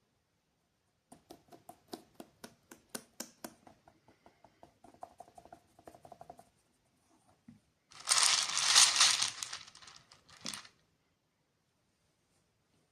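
Candy packaging being handled: a run of light taps and clicks, about three a second, then a few seconds of loud plastic wrapper crinkling about eight seconds in.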